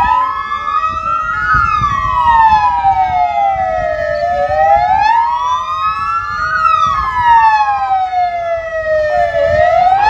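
Several ambulance sirens wailing together in a slow rise and fall, about one cycle every five seconds, with at least two slightly out of step. A steady high tone and a low engine rumble run beneath them.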